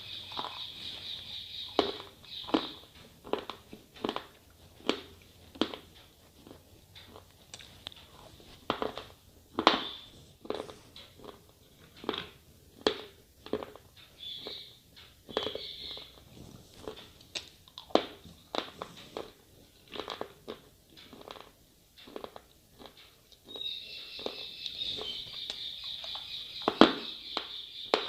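Slate pencil being bitten and chewed, with a run of sharp, irregular crunches about one to two a second.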